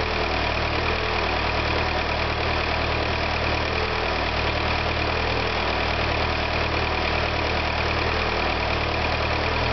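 VW Sharan engine idling steadily after an engine repair, with a thin, steady high whine above the idle.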